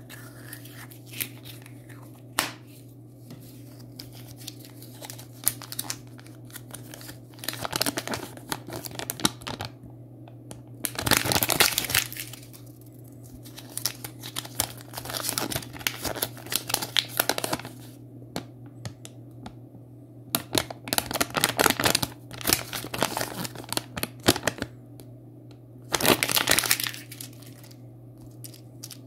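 Small wrapper packets of Kinder Surprise toy parts being crinkled and torn open by hand. The crinkling comes in several bursts, the loudest about eleven seconds in, with a few sharp clicks of the plastic capsule and toy pieces being handled. A steady low hum runs underneath.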